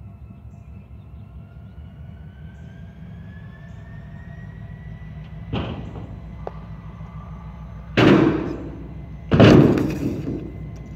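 Stunt scooter wheels rolling on a concrete skatepark as a low steady rumble, with a sharp knock about five and a half seconds in and then two much louder crashing hits at about eight and nine and a half seconds, each ringing off briefly, as the scooter hits and lands on the metal quarter pipe.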